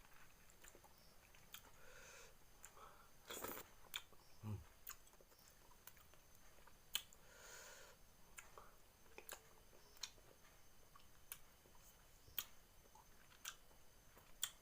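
A person quietly chewing and eating cooked fish, with scattered small clicks and smacks of the mouth.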